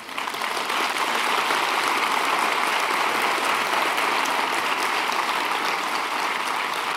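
A large audience applauding. The clapping builds within the first second, holds steady, and eases slightly near the end.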